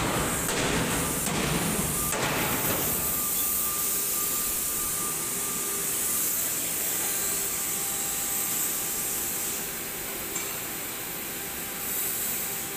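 Steady hiss and hum of machinery in a railway wagon repair shed, with a few knocks in the first couple of seconds.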